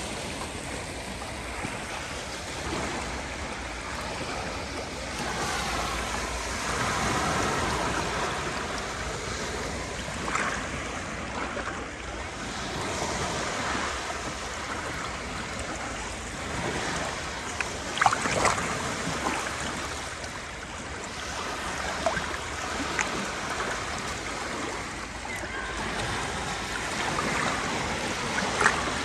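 Sea waves washing on the shore, the rush swelling and easing every few seconds, with a few short sharp splashes or clicks, the loudest about two-thirds of the way through.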